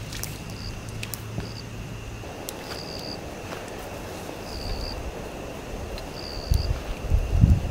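Forest ambience: a steady high insect drone with short high chirps repeating every one to two seconds. A low hum stops about two seconds in, and low rumbling bumps like wind on the microphone come near the end.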